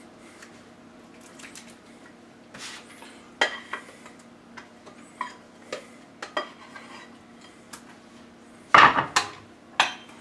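Stainless steel saucepan clinking and scraping as a sticky caramelised nut mixture is emptied out of it, with scattered light knocks and a louder clatter about nine seconds in.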